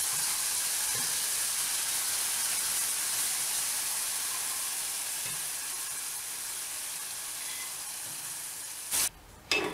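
Hot oil tempering of mustard seeds, cumin, curry leaves and green chillies sizzling steadily in a steel pan as cooked dal is poured into it. The sizzle slowly dies down, then cuts off suddenly near the end.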